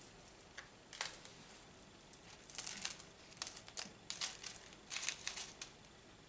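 Small washed pebbles rattling and clicking as they are handled and placed on top of an orchid pot's potting media, in a string of short, sharp rustling bursts.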